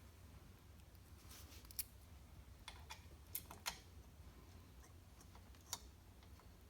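A few faint, sharp clicks and taps of hand tools on metal engine parts, spaced irregularly, over a low steady hum.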